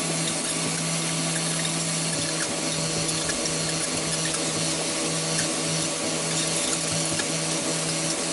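The motor of a homemade power-tool-driven shredder runs steadily at one pitch while its spinning blade chews at and flings a red toy apple. The motor's hum sits under a constant hiss, with scattered light ticks of debris.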